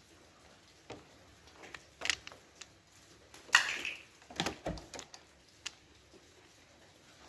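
Scattered light clicks, knocks and a short metallic clatter as the two throttle cables of a Honda CBR250R are worked loose and unhooked, with the loudest rattle about three and a half seconds in, followed by a couple of dull thuds.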